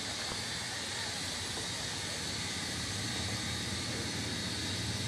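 Steam locomotive Aberdeen & Rockfish No. 40 standing with steam hissing steadily, over a low, steady rumble.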